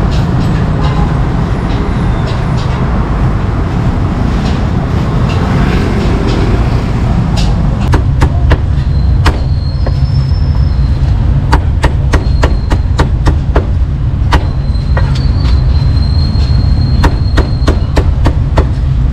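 Cleaver chopping roast meat on a chopping board: sharp, irregular knocks that start about eight seconds in, sometimes in quick runs, over a steady low rumble.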